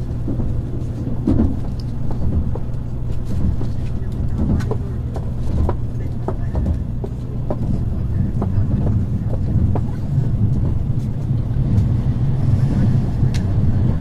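Cabin noise of an N700A Shinkansen running at low speed: a steady low rumble with scattered light clicks and knocks.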